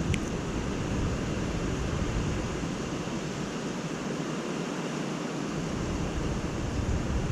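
Strong gusting wind blowing steadily, with a low rumble of wind buffeting the microphone.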